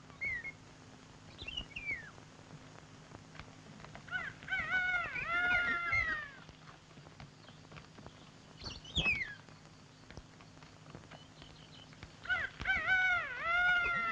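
Animal calls: two bouts of arching, wavering calls about a second and a half long, around five seconds and twelve seconds in, with shorter falling high calls between them.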